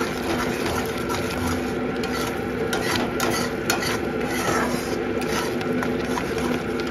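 Frying masala gravy being stirred in a pan, the oil sizzling, with scraping and a few sharp clinks against the pan. The oil has already separated from the masala. A steady hum runs underneath.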